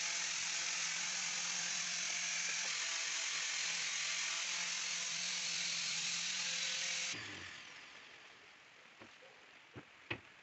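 Electric sander running steadily on a wooden window frame: a whine with a hum beneath it. It cuts off abruptly about seven seconds in, leaving faint background with a couple of light taps.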